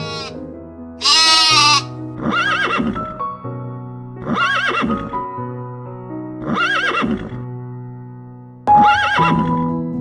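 Horse whinnying about a second in, loud and wavering in pitch, followed by four shorter, similar calls about two seconds apart, over soft piano music with held notes.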